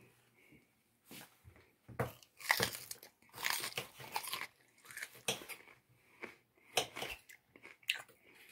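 Irregular crunches of crisp raw bell pepper, about a dozen short strokes at uneven intervals.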